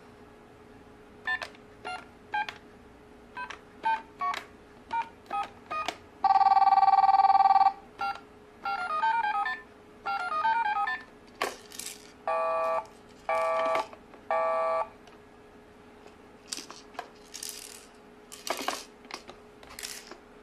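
Green plastic toy telephone's electronic sounds as its number keys are pressed: a dozen or so short beeps, then a long loud ring tone, short runs of electronic notes, and three short ring bursts. Plastic handling clicks and knocks near the end.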